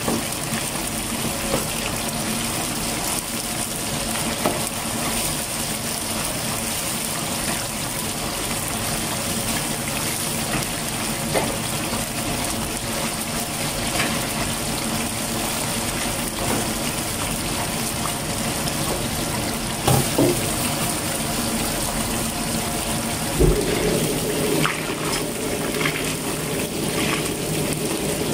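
Chicken pieces deep-frying in a wok of hot oil, a steady sizzle as they are fried until dry. A few short knocks of a metal ladle against the wok.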